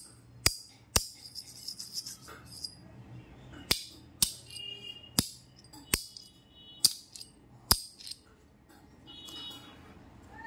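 Sharp clicks and clinks, about eight of them at uneven intervals, as a black ring magnet and a copper coin knock together in the hand during a magnet test. Two short metallic ringing tones sound, one a little after the middle and one near the end.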